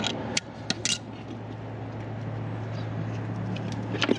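Sharp metal clinks, a handful in the first second and two more near the end, from tools and the oil drain plug being worked on a riding mower's engine, over a steady low hum.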